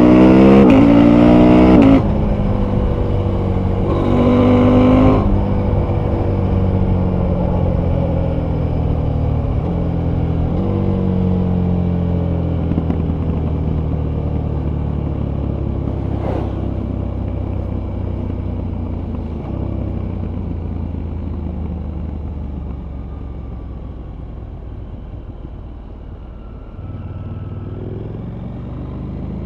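Husqvarna Norden 901's parallel-twin engine and exhaust accelerating hard, then the throttle shuts about two seconds in, with a short second burst of throttle around four seconds. It then runs down on a closed throttle for a long stretch, pitch and loudness falling slowly, and picks up a little again near the end.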